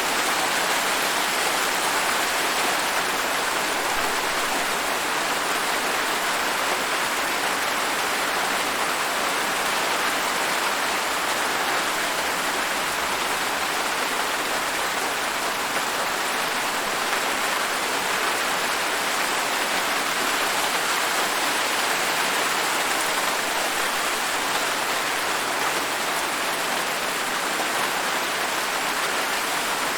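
Steady rain falling on a surface, a dense even hiss with no breaks or single drops standing out.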